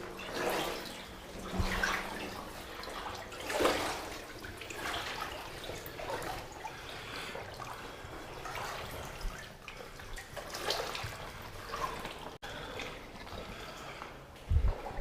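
Feet wading through floodwater, sloshing and splashing at an uneven walking pace, with one dull thump shortly before the end.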